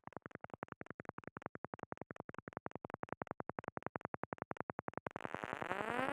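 Electroacoustic music: a fast, even train of short electronic pulses, about ten a second. Near the end it gives way to a louder hiss with a rising glide in several overtones.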